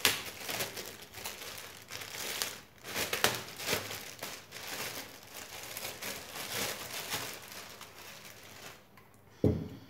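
Clear plastic packaging bag crinkling and rustling as a flexible gorillapod tripod is worked out of it, stopping a little before the end, followed by a single dull thump.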